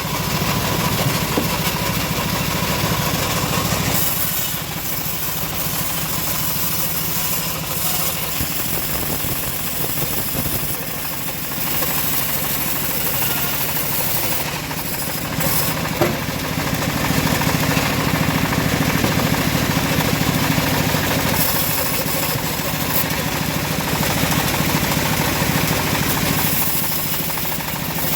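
Engine of a homemade bandsaw sawmill running steadily, with the saw working through teak.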